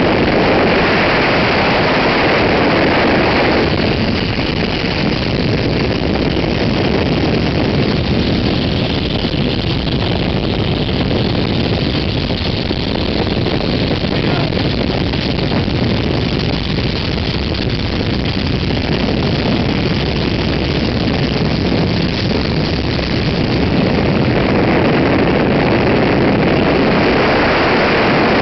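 Engine and propeller of a 1929 biplane in flight, heard on board as a loud, steady drone. It eases slightly about four seconds in and swells again near the end.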